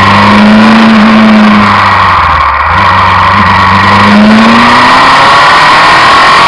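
Suzuki Inazuma 750's inline-four engine pulling hard under way: its note climbs, breaks briefly about two and a half seconds in as the next gear goes in, then climbs again. The engine is running on freshly adjusted carburettors.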